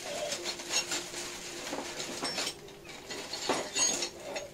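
Metal hand tools clinking and rattling as they are picked up and handled, a string of irregular light metallic clinks.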